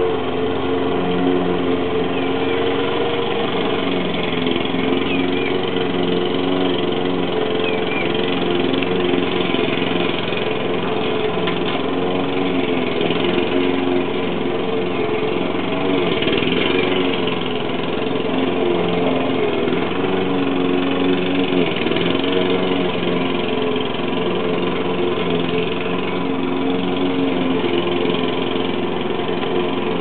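Lawn mower engine running steadily, its drone shifting slightly in pitch now and then.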